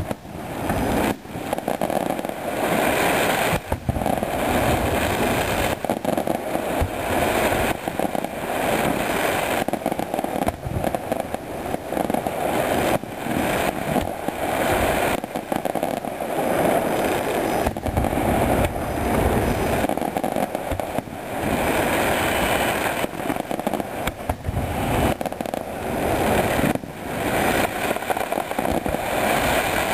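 Aerial fireworks shells bursting in quick succession: a dense, unbroken run of bangs and crackling.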